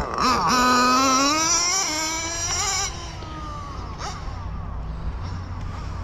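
Kyosho FW06 nitro RC car's .12 nitro engine accelerating hard from a launch, its loud high-pitched whine climbing steadily in pitch. About three seconds in it drops in level, and a fainter falling tone follows as the car runs off into the distance.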